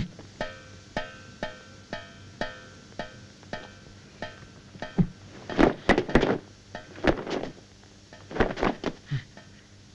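Film-score music with a steady percussive beat of ringing strikes, about two a second. From about halfway through, quick flurries of hard impacts come in over it: fight sound effects of punches and kicks landing.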